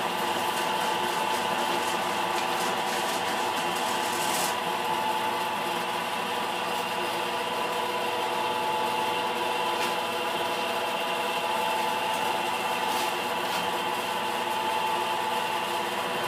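CNC-converted Force International knee mill cutting a half-inch plate, its spindle and cutter running steadily through a 100-thou-deep pass: an even whine of several steady tones with a few faint clicks.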